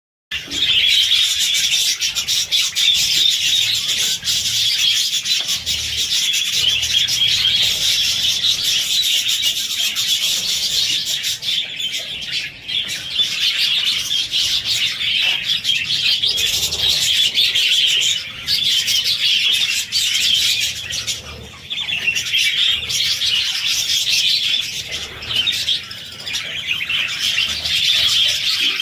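A flock of budgerigars chattering: a dense, continuous stream of overlapping chirps, with a few brief lulls.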